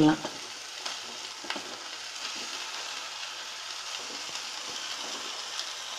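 Chopped onion, tomato and grated beetroot sizzling steadily in sesame oil in a kadai while being stirred, with a few light clicks of the spoon against the pan.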